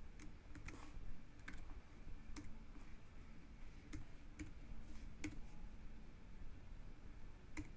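Keystrokes on a computer keyboard as a number is typed in: single faint clicks, slow and irregular, about half a second to a second apart.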